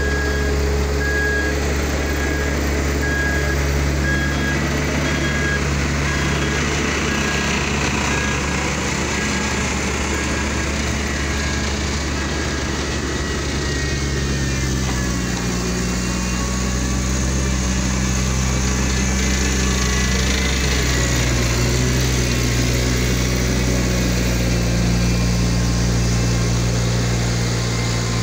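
Diesel engines of heavy earthmoving machines running together: a Volvo single-drum soil compactor and a Volvo crawler excavator, a steady loud drone whose engine note shifts pitch a couple of times about halfway through. A machine alarm beeps repeatedly and stops about six seconds in.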